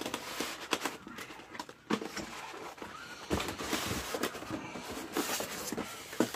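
Styrofoam packing block being slid out of a cardboard box: foam scraping and rubbing against cardboard, with rustling, small knocks and a few brief squeaks.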